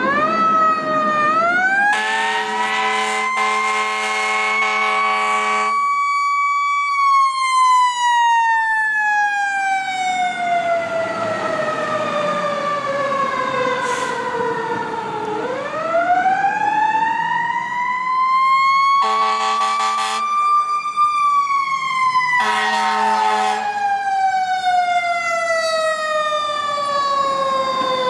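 Fire engine siren winding up and slowly winding back down in a long wail, twice, with the truck's air horns blasting three times over it: one long blast of about four seconds, then two short ones near the end.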